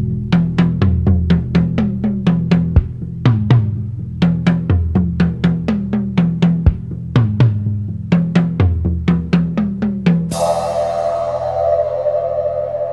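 Instrumental synth-pop: a busy drum pattern with rapid strikes over a bass line of sliding notes. About ten seconds in the drums and bass stop abruptly and a held synthesizer chord takes over.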